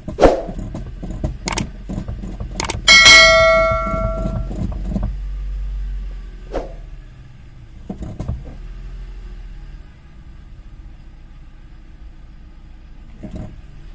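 Several knocks and clicks, then a loud metallic clang about three seconds in that rings for about a second and a half, with a low hum underneath.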